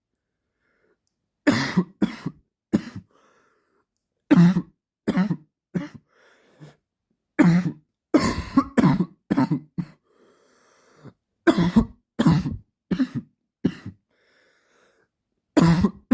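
A man's dry cough, coming in fits of three or four short, sharp coughs with brief pauses between the fits and faint breaths in between.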